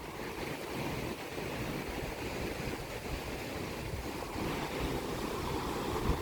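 Ocean surf washing onto the shore, a steady rushing wash of waves.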